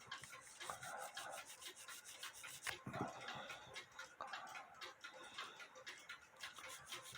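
Faint scratchy brush scrubbing on a rusty cuckoo clock movement, in quick repeated strokes: pre-cleaning the movement with furniture cleaner.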